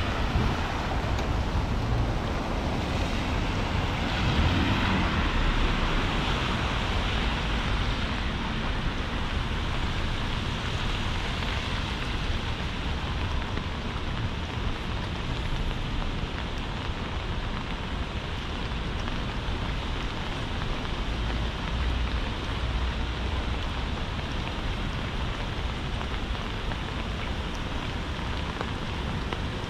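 Heavy rain falling steadily, a constant hiss, a little louder over the first several seconds.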